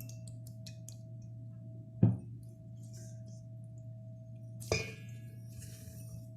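Kitchen dishes set down on a counter while the whipped-cream mix is prepared: a dull thud about two seconds in and a ringing clink near five seconds, over a steady low hum.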